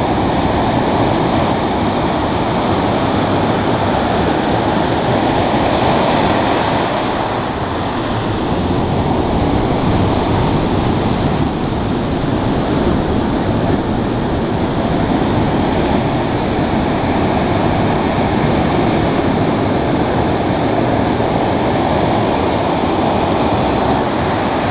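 Ocean surf breaking and washing up the beach as foam: a loud, steady rush of water that eases slightly about eight seconds in.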